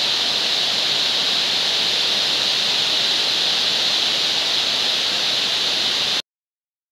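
Heavy rain pouring down in a steady, dense hiss, which cuts off abruptly about six seconds in.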